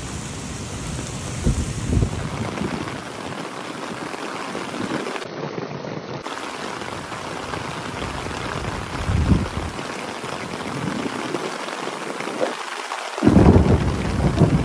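Heavy rain pouring steadily onto wet paving, a constant hiss. Low rumbles swell through it now and then, the loudest one near the end.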